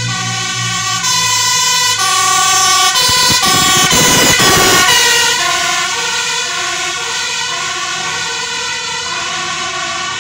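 Two-tone siren of a fire service aerial ladder truck, switching back and forth between a high and a low note. It grows loudest, with the truck's engine and road noise, as the truck passes about three to five seconds in, then drops in pitch as it drives away.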